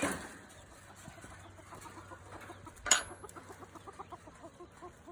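Hens clucking softly in a run of short, low calls, with a brief rustle at the start and a single sharp click about three seconds in.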